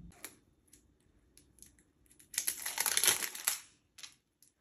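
Handling of cosmetics: scattered small plastic clicks and taps as the lipstick is put down and a lip gloss tube is picked up, with about a second of crinkling in the middle, the loudest part.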